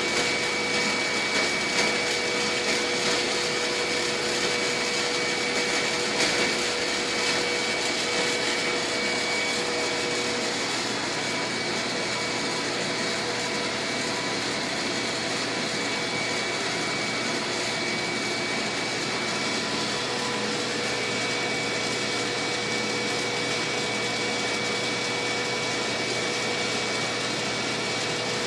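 A small electric motor running steadily: a constant hiss with a steady whine, a little uneven in loudness for the first several seconds.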